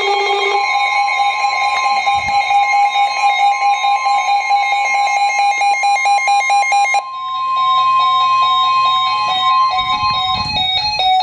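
Emergency Alert System alarm tone from NOAA Weather Radio, announcing a severe thunderstorm warning: a loud, steady two-pitch electronic tone. The sound changes about seven seconds in, and near the end only a lower, stepping tone remains.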